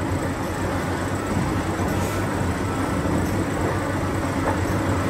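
Diesel engine of a Cat 6015B hydraulic mining excavator running steadily as the machine works, a low even hum.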